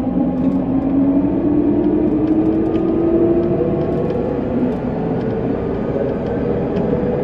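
Interior running sound of a JR West 207 series electric train, its traction motor whine rising slowly in pitch as the train gathers speed over a steady rumble of wheels on rail.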